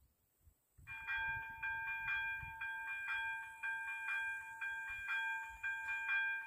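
Electronic warning bell of an AŽD 97 level crossing switching on about a second in and ringing in rapid, even strokes. It signals that the crossing has activated for an approaching train.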